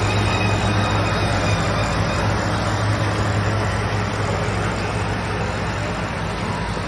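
Tractor working a Maschio Gaspardo baler: a steady low engine drone under a continuous wash of machine noise.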